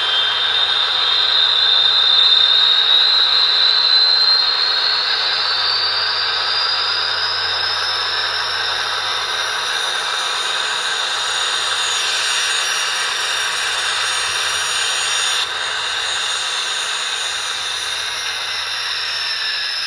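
Gas-turbine sound of a Union Pacific GTEL 8500 HP 'Big Blow' turbine, played by an ESU LokSound 5 decoder through the small speaker of an N scale model B unit. A turbine whine rises in pitch as it spools up over the first several seconds, then runs on steadily over a rushing hiss, and near the end starts to fall in pitch as the turbine shuts down.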